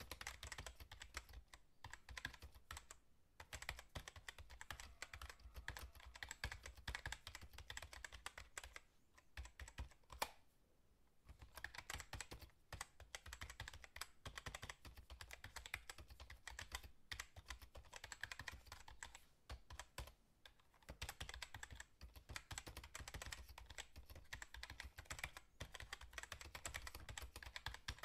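Fast typing on a computer keyboard: rapid runs of key clicks, broken by short pauses about three seconds in, about ten seconds in and about twenty seconds in. One harder keystroke comes just before the longest pause.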